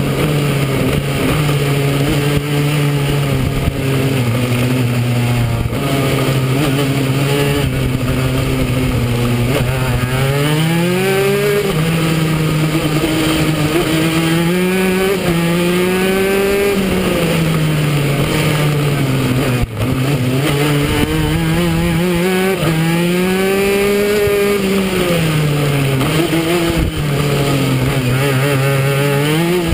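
Racing kart engine heard from on board at speed, its pitch steady for a while and then repeatedly rising and falling as the throttle is opened and closed through the corners.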